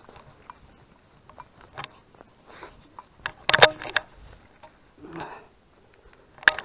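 Footsteps on a trail: irregular crunches and clicks, loudest in a cluster about three and a half seconds in.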